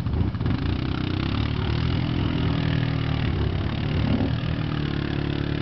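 Quad bike (ATV) engine running under steady throttle as the machine churns through a deep mud bog, with the wet slosh of its tyres in the mud and water.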